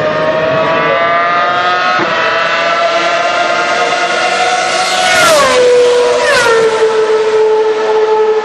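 Formula 1 car engine running at high revs with a high, buzzing note that climbs slowly. The pitch then drops sharply twice, about five seconds in and again about a second later, each drop with a brief crackle, before settling on a lower steady note.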